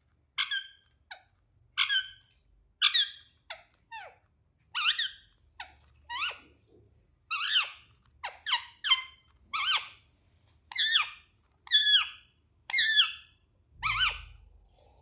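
Indian ringneck parrot giving short, high chirping calls over and over, about one or two a second.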